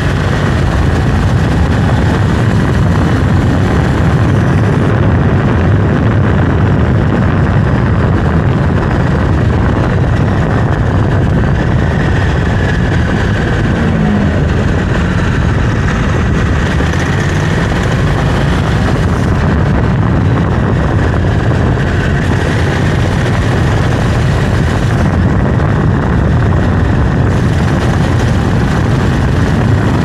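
Honda CRF1100L Africa Twin's 1084 cc parallel-twin engine running while the bike is ridden, heard close up at the engine, blended with steady road and wind rush. Loud and even, with no clear revving.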